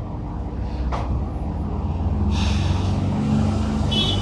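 Low engine rumble of a motor vehicle, growing louder from about two seconds in.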